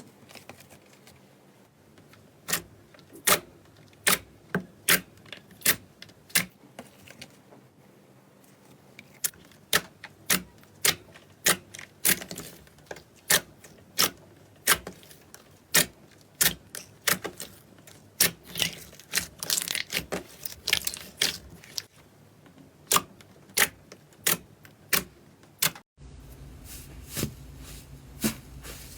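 Slime being pressed and worked, giving a run of sharp pops and clicks, about one or two a second and thicker around the middle. Near the end the clicks thin out over a low steady hum.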